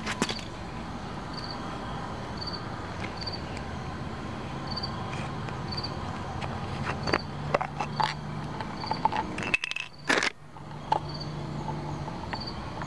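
Night-time outdoor background of steady low hum, with short high insect chirps repeating about once a second. In the second half come several sharp clicks and knocks, the loudest sounds, from a plastic pill bottle being handled on concrete.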